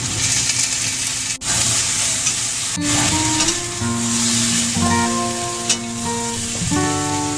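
Food sizzling and frying in a pan, a steady hiss, under background music with held notes.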